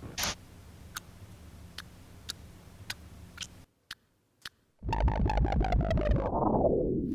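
Electronic sound design: scattered sharp ticks over a low hum, a brief drop to silence, then a loud buzzing synthesizer tone that sinks in pitch over about two seconds near the end.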